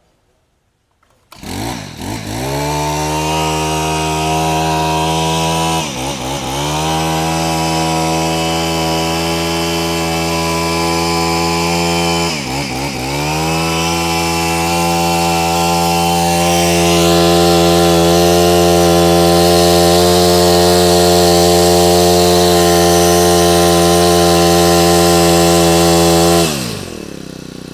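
Small Honda GX25 25cc four-stroke brush-cutter engine starting up and running steadily. Its speed dips briefly twice, and it runs a little louder in the second half. Near the end it is shut off, its pitch falling away.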